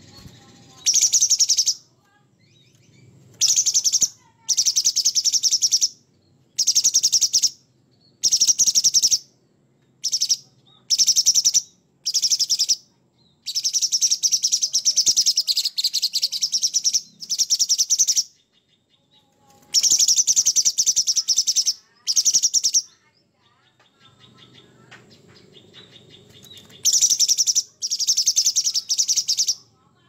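Orange-bellied leafbird (cucak cungkok) singing loudly in rough, rapid high-pitched phrases of chattering notes. About a dozen bursts come with short gaps between them, one running about three seconds, with a longer pause before the last two.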